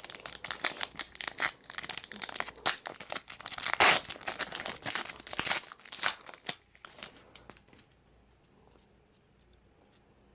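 A 2019 Donruss baseball card pack's wrapper being torn open and crinkled by hand, a dense crackling that is loudest about four seconds in and dies away after about seven seconds.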